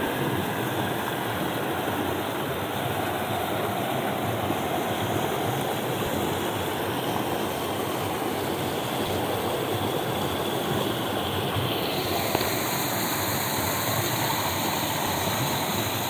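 Fast river water rushing and churning through a rocky chute, a steady, dense rush of whitewater.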